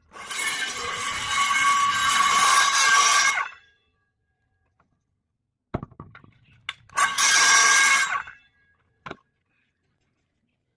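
Power saw cutting through plywood for a boat transom: a cut of about three seconds, then after a pause a second short cut of about a second, with a few knocks in between.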